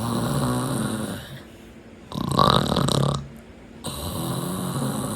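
A man snoring: three long snores of about a second each with short pauses between, the middle one the loudest.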